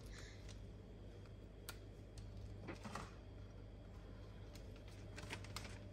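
Quiet room with a low steady hum, broken by a few faint light clicks and rustles as metal tongs lay salad leaves onto paper-lined plates.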